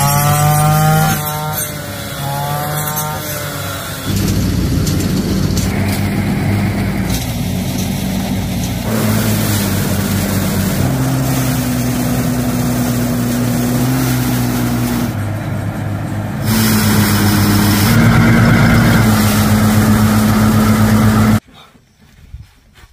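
Small petrol engines running in a run of short clips: a backpack brush cutter with a rice-reaping head cutting rice stalks, and a mini rice thresher running as rice bundles are fed into its drum. The engine pitch rises and falls in the first few seconds and jumps at each cut, and the sound drops away suddenly near the end.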